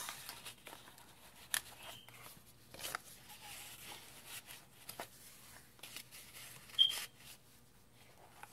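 Paper cards and fabric pages of a handmade junk journal being handled and turned: faint rustling with scattered soft taps and clicks. A brief high squeak comes about two-thirds of the way through.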